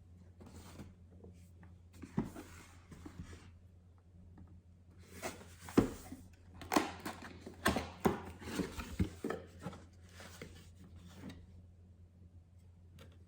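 Irregular rustling, clicks and knocks of things being handled, busiest in the middle, over a steady low hum.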